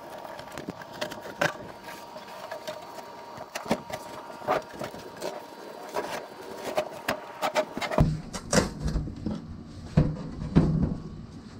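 Old carpet being ripped and scraped off plywood boat panels: irregular tearing and scraping strokes with sharp clicks, turning heavier and lower about eight seconds in.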